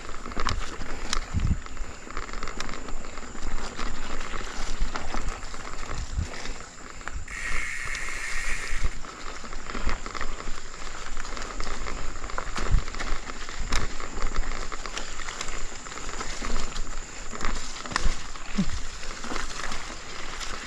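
Mountain bike riding over a rough, muddy dirt track: tyre noise on the dirt with frequent knocks and rattles from the bike as it jolts over ruts, and a brief high buzz about seven seconds in.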